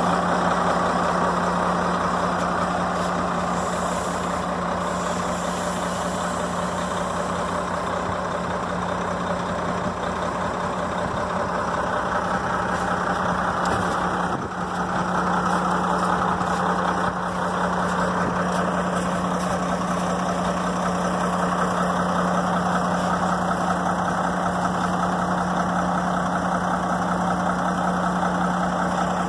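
1996 Ford L8000 truck's engine idling steadily.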